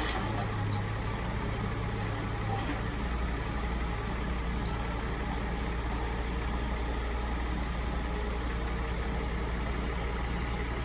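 Heavy-equipment diesel engine running steadily at an even level, with no revving.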